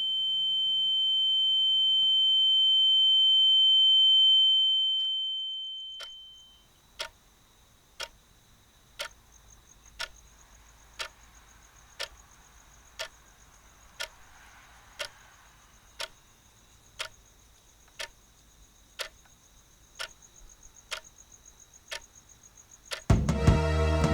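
A single steady high-pitched ringing tone swells and then fades away over the first six seconds, followed by a clock ticking about once a second in otherwise quiet surroundings. Music comes in loudly near the end.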